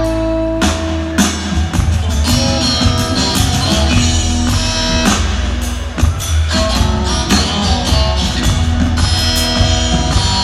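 Live rock trio playing: electric guitar leading over upright bass and a drum kit, heard from the audience in the hall.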